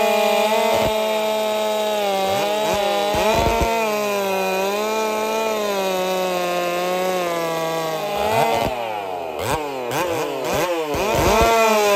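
Two-stroke chainsaw cutting through a log under load, its engine pitch sagging slowly as the chain pulls into the wood, then rising and falling in quick swoops as the saw comes free of the cut about eight seconds in.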